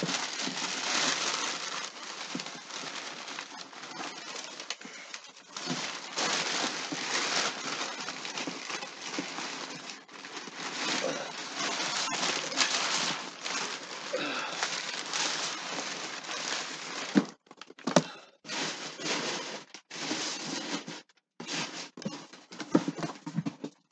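Packaging being handled while a parcel is unboxed: a steady crinkling and rustling of plastic and paper, with scattered crackles. It breaks into shorter separate bursts over the last several seconds.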